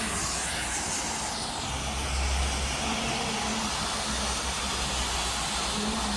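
An EK 1200 outdoor warning siren sounding its high-low tone during a test, heard as a steady hissing wail over a low rumble.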